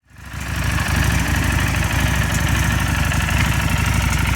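Harley-Davidson Street 750's liquid-cooled 60-degree V-twin idling steadily with an even, low pulsing beat, fading in over the first half second.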